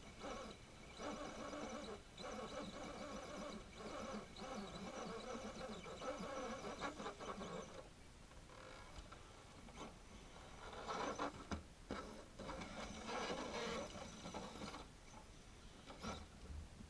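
Radio-controlled rock crawler's electric motor and gears whining in bursts as the truck climbs over dirt and rocks, the whine rising and dropping with the throttle. It pauses about eight seconds in, then comes back in shorter bursts.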